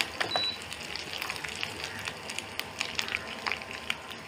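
Grated coconut, curry leaves and mustard seeds frying in hot coconut oil for a tempering: a steady sizzle with scattered small crackles and pops as the coconut is browned.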